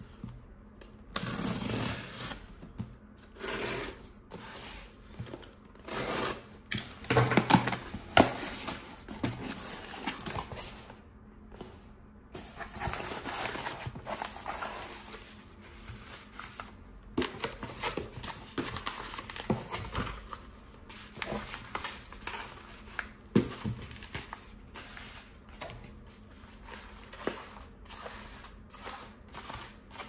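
Unboxing sounds: a utility knife slitting the packing tape on a cardboard box and the flaps being opened, then paper-wrapped packets being handled and set down on a tabletop. Irregular scraping and rustling through the first half give way to lighter handling with scattered taps.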